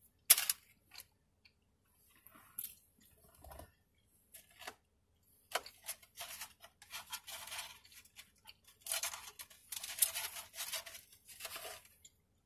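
Close-up rustling and crinkling of a fast-food paper wrapper as food is handled, mixed with crunchy eating noises. The sounds come in short bursts, with a sharp crackle just after the start and denser runs in the second half.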